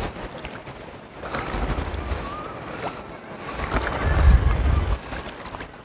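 Sea surf washing over a rocky shore, swelling louder twice.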